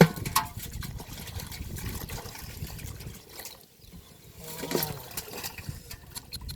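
Shallow river water splashing and trickling as hands work through water hyacinth along the bank, opening with a sharp knock.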